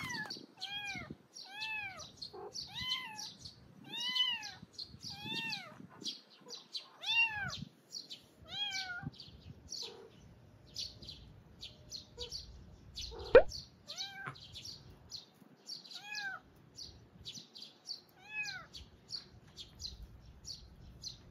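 Newborn kitten mewing over and over, each cry a short high call that rises and falls, about one a second at first and then every two seconds or so; the kitten is away from its mother and crying for her. Small birds chirp faintly behind it, and there is one sharp click about thirteen seconds in.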